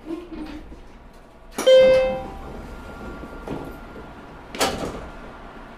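Sounds inside a JR Kyushu 713 series train car: a low rumble, a short loud pitched ring or buzz about one and a half seconds in that dies away within a second, and a brief hiss about a second before the end.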